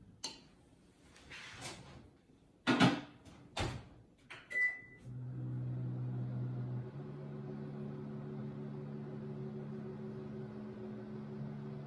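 Microwave oven door handled with a few knocks and clicks, a short keypad beep, then the oven starts and runs with a steady low hum.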